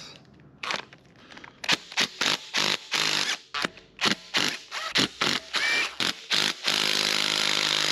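Impact gun on intake manifold bolts, firing in a string of short bursts, then running on without a break near the end as it hammers at a stubborn bolt that is way over-torqued.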